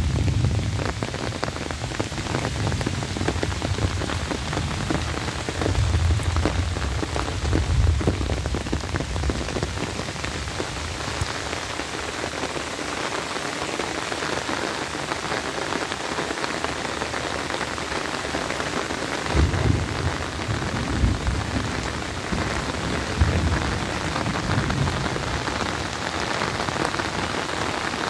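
Steady rain falling on grass, leaves and open fields: a dense, even hiss. Several brief low rumbles come through it, around six to eight seconds in and again from about twenty to twenty-five seconds in.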